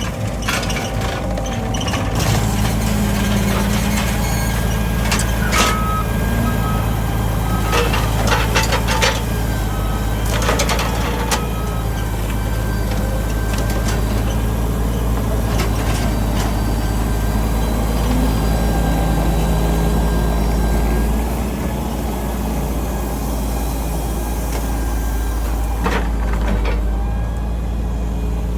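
Heavy engine running steadily, with sharp knocks and clatter now and then.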